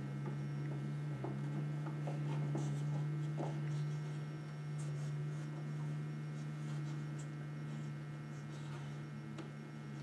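A steady low mains hum, with faint scattered clicks and taps of wood on wood as turned wooden spindles are worked into the drilled holes of a wooden rail during a dry fit.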